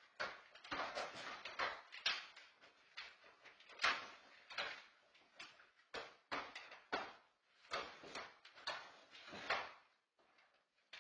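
Plastic dog travel crate scraping and bumping across a hardwood floor as a dog underneath pushes it around: a run of uneven scrapes and knocks, several a second, that stop near the end.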